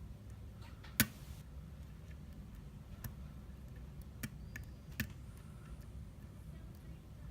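A handful of sharp, irregularly spaced metallic clicks, the loudest about a second in: a Sparrows pick working the pin tumblers of an ERA euro-profile cylinder lock, held under tension by a flat pry bar, during single-pin picking.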